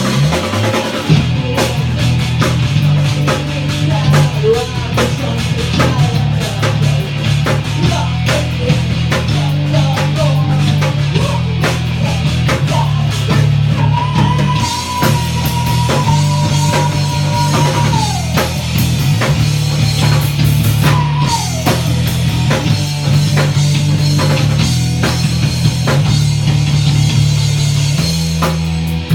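Rock music played by a band on drum kit, guitar and bass, with a long held high note near the middle.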